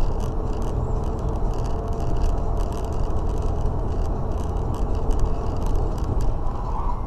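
Steady road and engine noise of a car driving at highway speed, heard from inside the cabin, with faint light ticks over it.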